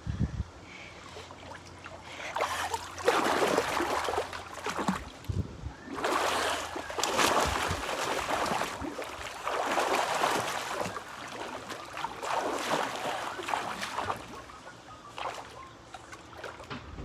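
Pool water splashing and sloshing as a swimmer moves through an above-ground pool, in irregular surges of a second or two.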